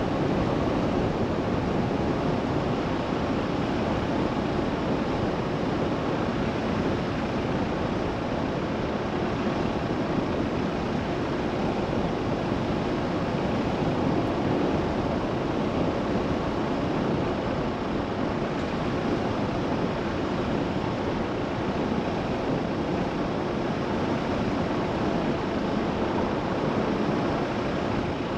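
A car driving steadily along a narrow country lane: a constant rumble of tyres on the road with a low engine hum underneath.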